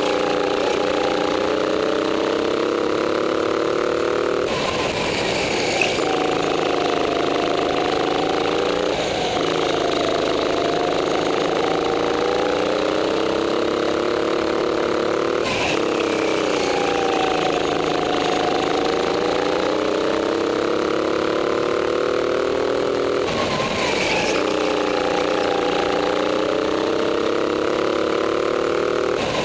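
Racing go-kart running flat out, its pitch sagging as it slows and climbing again as it accelerates, over and over. Short hissing bursts come in four times.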